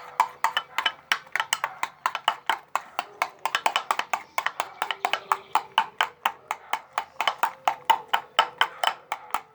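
A small spoon knocking rapidly against a plastic tub as a soapy mixture is beaten, about five or six sharp clacks a second.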